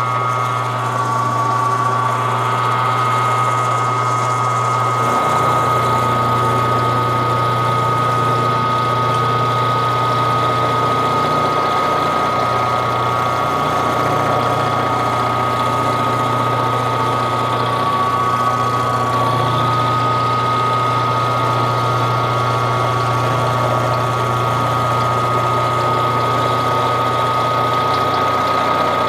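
Benchtop mill-drill running steadily with a hum and a high whine while its drill bit bores into a metal oil pump housing.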